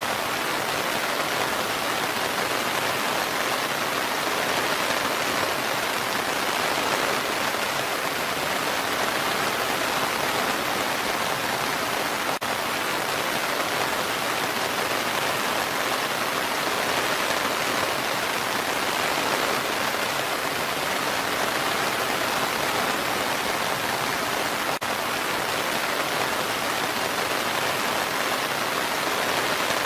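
Steady rain falling on forest foliage, blended with the continuous rush of a waterfall: an even, unbroken hiss. There is a barely noticeable dip about every twelve seconds.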